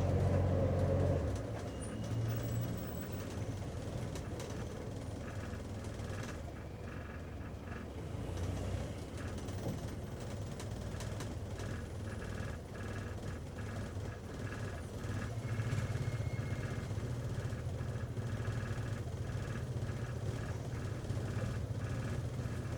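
Taxi running steadily, heard from inside the cabin: a low engine hum with road noise. The hum eases after the first second and swells again about two-thirds of the way through. A faint regular ticking sits over it from about five seconds in.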